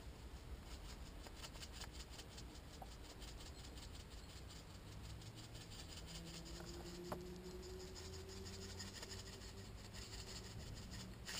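Salt being shaken from a cardboard carton over eggs in an aluminium pan, a faint, quick, even rattle of grains. There is a sharp click about seven seconds in, and a faint low hum slowly rises in pitch during the second half.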